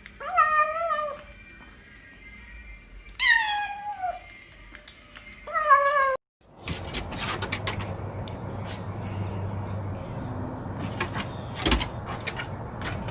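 A cat meowing three times in long calls, the second one sliding down in pitch. About six seconds in the sound cuts out, and steady background hum with scattered knocks and clicks follows.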